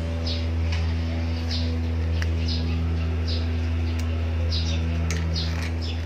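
A steady low hum, with short high chirps from a bird repeating about once a second and a couple of faint clicks.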